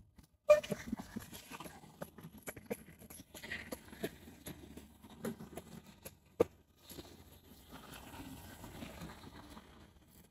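Irregular footsteps and taps close to the phone microphone, with traffic passing on the road. A few sharp knocks stand out, the loudest about half a second in and after about six seconds.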